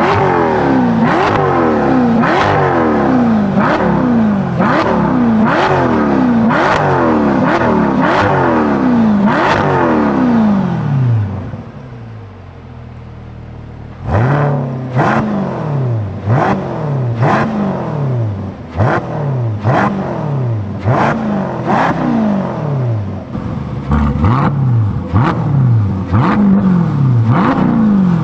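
Corvette C8's 6.2-litre V8 through a titanium X-pipe exhaust, revved hard in quick blips about once a second, each one rising and falling back, with sharp cracks. About eleven seconds in it settles to a steady idle for about three seconds, then the blips start again.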